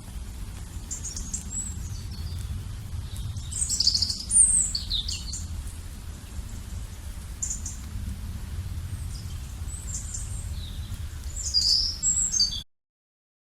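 Wild birds chirping and calling in short, scattered high phrases over a steady low rumble, with louder bursts of calls about four seconds in and near the end. The sound then cuts off abruptly.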